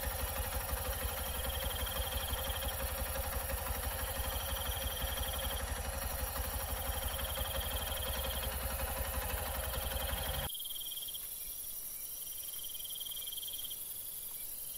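Night insects trilling in repeated high phrases, each about a second long, coming every couple of seconds. Under them is a steady low rumble that cuts off suddenly about ten seconds in.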